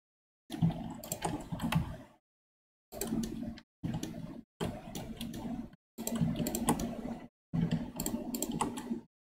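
Computer keyboard and mouse clicking in six separate bursts, each cutting in and out abruptly, with a low hum under the clicks.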